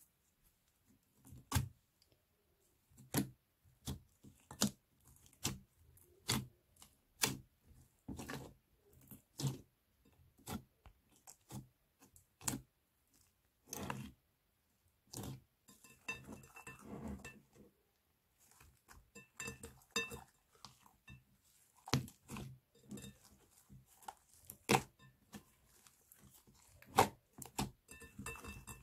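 Slime being pressed and stretched by hand, giving sharp sticky pops and clicks at about one a second, with longer crackly, crinkling stretches in the middle.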